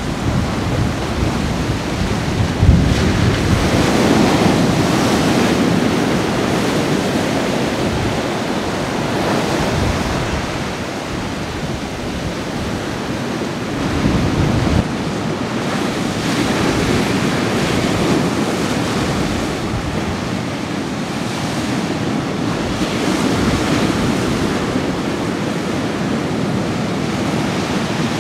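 Ocean surf breaking and washing into a rocky lava-rock cove, the roar swelling and easing every few seconds as each wave comes in. Wind rumbles on the microphone underneath.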